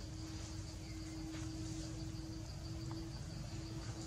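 Outdoor ambience of insects chirring steadily in a high, pulsing line, over a steady low hum and a low rumble, with a couple of faint ticks.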